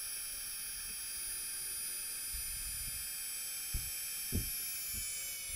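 Battery-powered air pump running with a steady whine as it inflates an air mattress. Two soft low thumps come near the end.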